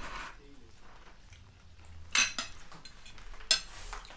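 Metal cutlery clinking on ceramic dinner plates while people eat, with two sharp clinks about halfway through and again a little over a second later.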